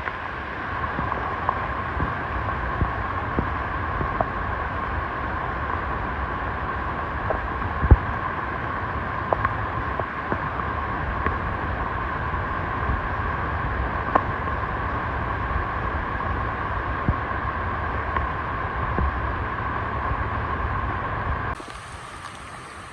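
Steady rain with scattered sharp drip ticks. About 21 s in it cuts to a quieter, hissier sound.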